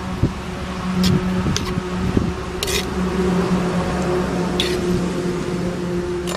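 Steel ladle stirring chopped bottle gourd, tomato and onion in a clay pot, with a few short scrapes of the ladle against the pot, over a steady low hum.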